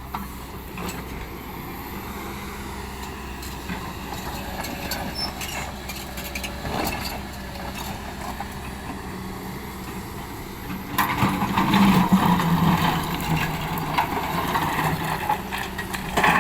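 Hydraulic excavator's diesel engine running steadily, with a few knocks along the way. About eleven seconds in, the engine gets louder and stays louder.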